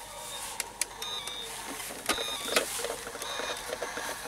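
Plastic toy trucks being handled: scattered clicks and knocks, with a few short high beeps.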